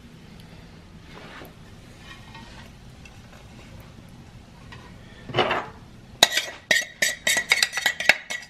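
A metal utensil scraping and clinking against a saucepan as hot caramel is scraped out over popcorn. It is faint at first, with one louder scrape about five seconds in, then a quick run of sharp metallic clinks with a ringing tone.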